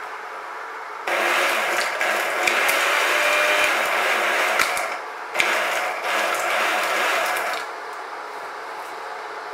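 Small electric grinder grinding roasted acorns into powder, switched on twice: a burst of about four seconds, a short pause, then a second burst of about two seconds.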